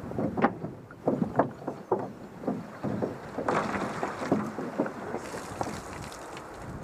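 An overturned canoe being carried on the shoulders along a rocky trail: irregular knocks and creaks from the hull and yoke, about two a second as the carrier walks, with a short rustle about halfway through.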